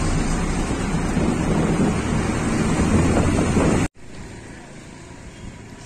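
Wind buffeting the microphone on a moving vehicle, a loud, even rush strongest in the low end. It cuts off suddenly about four seconds in, giving way to a much quieter, steady outdoor background.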